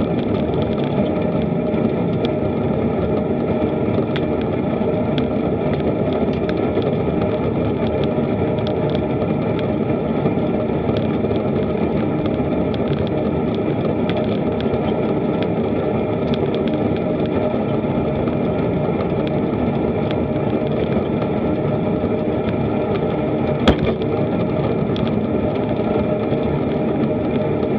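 Steady rumble and hiss of a moving bicycle, picked up by a bike-mounted action camera: wind on the microphone and road vibration through the mount. A single sharp knock comes near the end.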